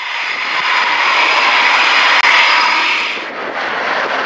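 RAF Eurofighter Typhoon jets flying past in formation: loud jet engine noise with a steady high whine, swelling to a peak about two seconds in and then dropping away suddenly about three seconds in.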